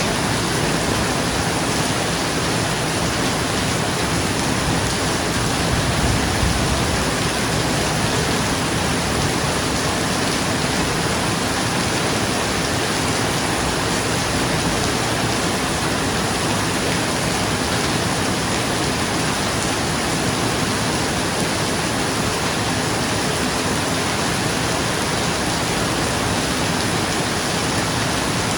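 Steady heavy rain falling on a roof: a dense, even hiss with no letup.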